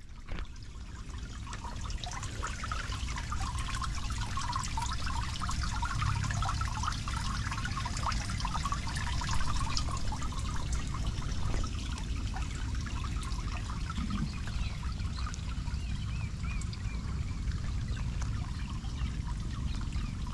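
Water trickling into a roadside storm drain through its metal grate, over a steady low rumble. It grows louder over the first two seconds.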